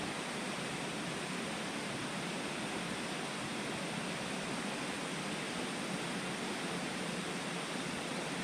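Waterfall rushing into a rock pool: a steady, even hiss of falling water that does not change.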